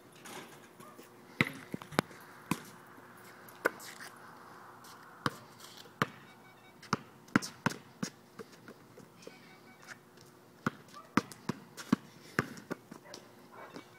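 Basketball bouncing on pavement: sharp, irregularly spaced bounces, quick runs of dribbles broken by short pauses.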